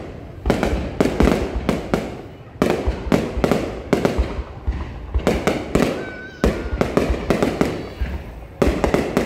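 Fireworks display: shells bursting in quick clusters of sharp bangs, with a low rumble between them.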